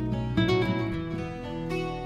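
Background music with plucked acoustic guitar, notes sounding and sustaining at a gentle pace.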